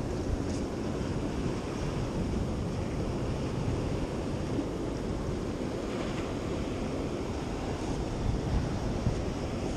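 Ocean surf washing against the rocks of a breakwater, a steady rushing wash, with wind buffeting the microphone.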